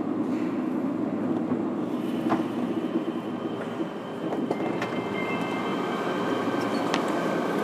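Running sound heard from inside a JR 103 series (1500 subseries) motor car with MT55 traction motors: a steady rumble of wheels and motors under way. Thin high steady tones come in about two seconds in and again near the middle.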